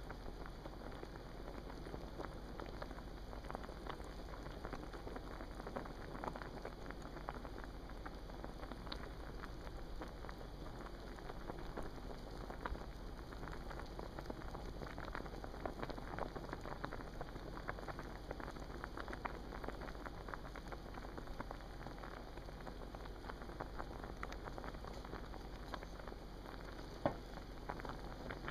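Pot of water boiling, a steady dense crackle of many small bubbles popping, with one sharp tick near the end.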